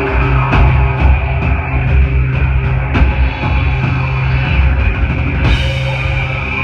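Electro-industrial band playing live through a club PA: a pounding drum beat over a deep synth bass line and keyboards, with a burst of high hiss about five and a half seconds in.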